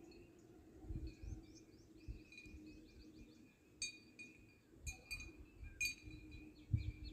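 Faint small-bird chirping in the background, with a few sharp clinks about four to six seconds in and some dull low bumps.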